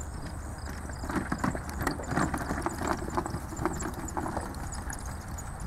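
A pony's hoofbeats as it trots pulling a two-wheeled cart, a run of hoof strikes loudest in the middle.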